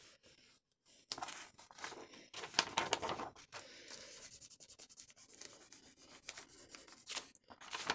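Hands rubbing and pressing a sheet of scrap paper over a freshly glued paper cut-out, the paper rustling in quick, irregular strokes to stick the glued edges down. It starts about a second in.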